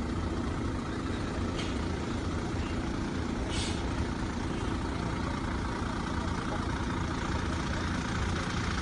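A large vehicle engine idling steadily, with two short hisses about a second and a half and three and a half seconds in.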